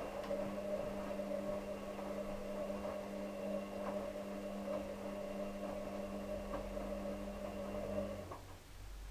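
Steady electrical hum from a kitchen appliance, with a few light ticks, that cuts off suddenly about eight seconds in, leaving a low rumble.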